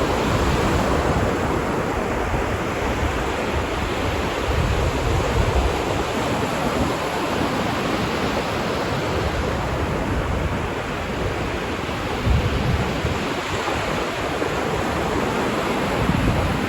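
Ocean surf washing steadily onto a beach, with a few low rumbles swelling and fading.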